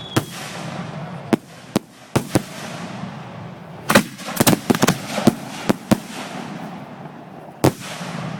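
Fireworks grand finale heard close to the launch site: a quick, irregular string of about a dozen sharp bangs from firing shells, bunched together about four to six seconds in, over a continuous hiss and crackle.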